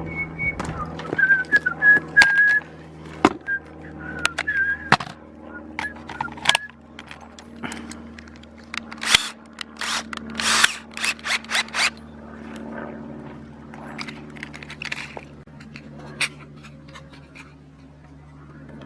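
A man whistling a few wavering notes, then a spell of clattering and rattling from small hard objects being handled, over a steady low hum.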